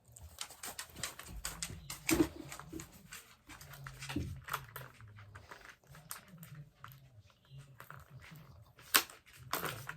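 Plastic and cardboard toy pieces being handled and pulled free of tape: irregular small clicks, taps and rustles, with sharper knocks about two seconds in and near the end.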